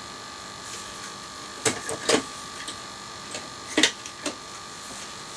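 A handful of light clicks and knocks from small hard objects being handled, such as model locomotives being put down and picked up. They come in two clusters, about one and a half to two seconds in and again around four seconds, over a steady electrical hum.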